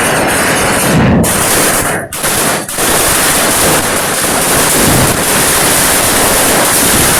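Vedikettu fireworks: a dense barrage of rapid explosions merging into a continuous roar, with a brief lull about two seconds in.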